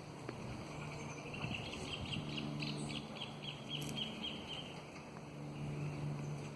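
A bird calling in a quick series of repeated high notes, about four a second, for about three seconds, over a faint low hum that comes and goes.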